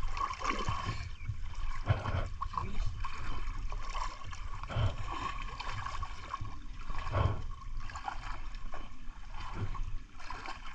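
River water splashing and sloshing as people move through it with a fishing net, with irregular low thumps.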